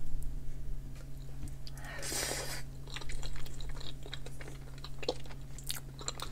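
Close-up chewing and mouth sounds of someone eating, with a knife and fork clicking and scraping on a china plate while cutting chicken breast. A louder rasping scrape comes about two seconds in, over a steady low hum.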